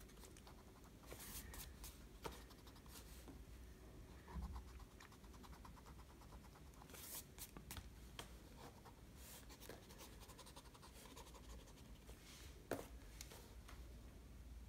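Faint scratchy rubbing of a MONO zero pen-style eraser on sketchbook paper, in a few short spells of strokes with quiet pauses between, working pencil out of the paper's grain. Near the end there is one sharper light tick.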